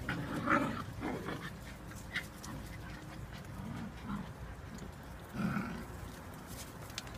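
Eight-week-old whippet puppies play-fighting, with a few short puppy vocal sounds, loudest about half a second in and again about five and a half seconds in.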